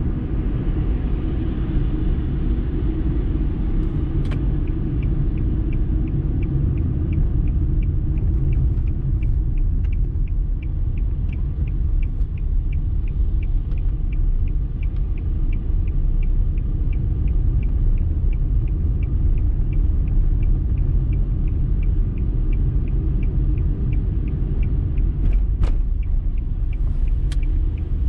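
Car interior rumble of road and engine noise while driving at steady speed. From a few seconds in there is a light, regular ticking about twice a second.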